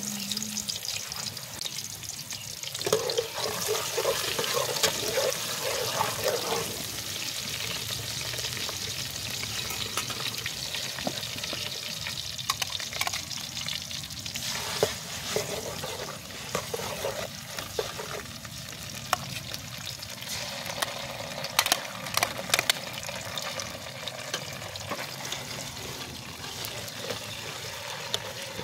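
Onions frying in oil in a metal pot: a steady sizzle, with a metal spoon stirring and clinking against the pot, the sharpest clinks about three quarters of the way through.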